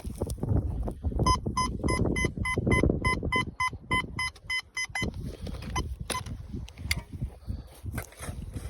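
A metal detector beeping: a fast, even run of short high beeps, about four a second, lasting nearly four seconds, over rustling and handling noise. After the beeps stop there are scattered scrapes and clicks.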